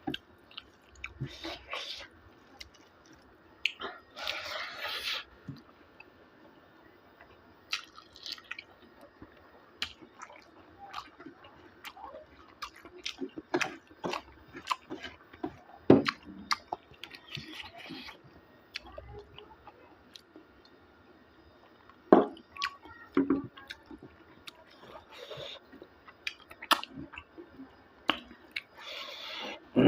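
A person chewing and eating pork with bamboo shoot close to the microphone: a steady run of short wet mouth clicks and smacks, with a few louder knocks.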